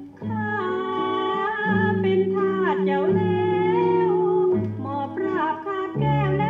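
A woman singing a Thai song with instrumental accompaniment, played back from a vinyl LP record; the voice enters about a third of a second in with sliding, wavering held notes.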